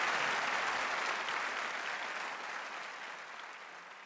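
Large audience applauding, the clapping fading away steadily toward the end.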